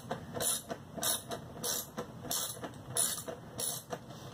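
Socket ratchet wrench backing out a bolt on a self-propelled lawn mower: a short burst of pawl clicks on each back-swing, about six in a row, roughly one every two-thirds of a second.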